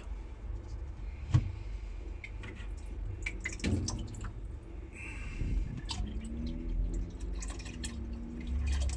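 A liquid yeast starter is poured from a glass conical flask into a plastic fermenter bucket of wort, trickling and dripping. A sharp knock comes about a second and a half in as the bucket's plastic lid is pulled off.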